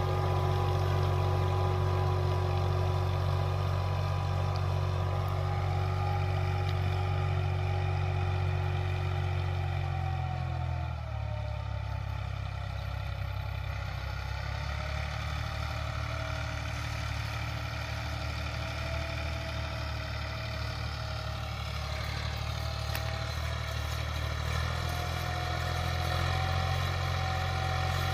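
Massey Ferguson 260 tractor's turbo diesel engine running steadily under load, pulling a 16-disc harrow through wet soil. The deep drone eases a little about ten seconds in, with a slight shift in pitch, and picks back up near the end.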